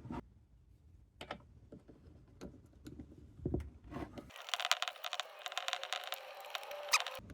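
Scattered light clicks and taps of a screwdriver against the chainsaw's metal and plastic parts, then about three seconds of rapid scraping and clicking from about four seconds in as the Allen screws holding the carburetor are worked loose.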